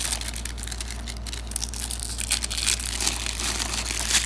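Plastic shrink-wrap crinkling and tearing as it is peeled off a DVD case by hand, in irregular crackling bursts.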